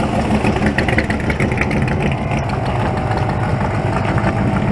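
Car engine idling steadily, with wind buffeting the microphone.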